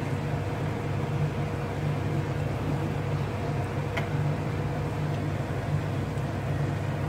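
A steady low hum with a faint higher tone through it, and one sharp click about four seconds in as the spatula tapping the metal pot while stirring fried rice.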